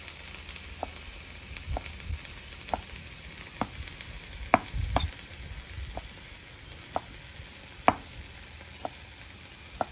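A knife slicing seared Denver steak thin on a wooden cutting board, the blade knocking the board with a sharp tap about once a second. A faint, steady sizzle runs underneath.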